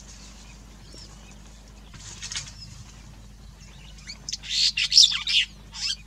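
Donaldson-Smith's sparrow-weaver calling: a short burst of high chirps about two seconds in, then a louder run of rapid, high chattering notes lasting nearly two seconds near the end.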